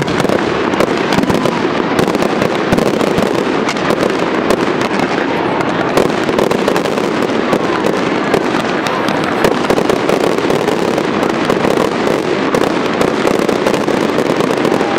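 Fireworks going off in a dense, unbroken stream of crackles and pops, steady in loudness with no pause and no single blast standing out.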